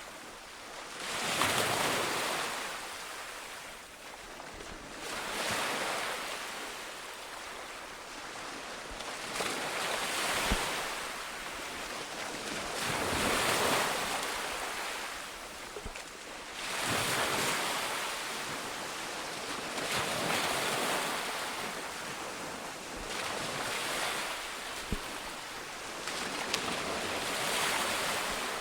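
Sea waves breaking and washing in, surging about every three to four seconds.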